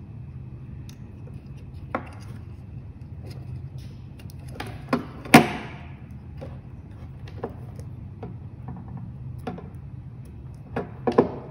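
Handling noise: scattered clicks and knocks as a stepper motor's plastic cable connector is plugged in and the CNC shield and motor are moved about on a wooden tabletop. The loudest knock comes about five seconds in, with a quick cluster of clicks near the end.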